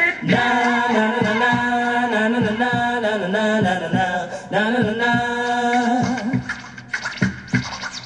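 Music played at full volume through a Bose SoundLink Revolve portable Bluetooth speaker: a sung melody with long held notes, then a drum beat comes in about seven seconds in.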